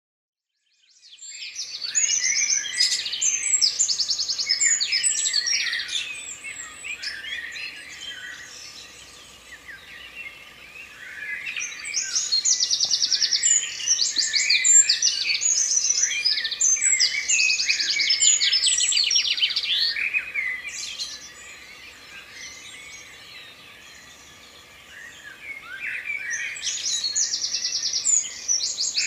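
A chorus of many songbirds singing at once, overlapping chirps and rapid trills, starting about a second in and swelling and fading in waves, loudest in the middle and again near the end.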